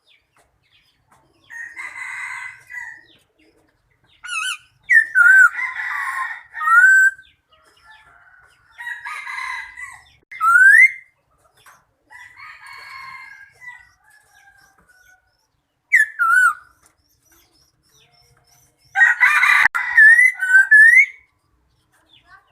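Bird calls in separate phrases every few seconds: sharp rising whistled notes alternating with harsher, noisier calls, with the loudest cluster near the end.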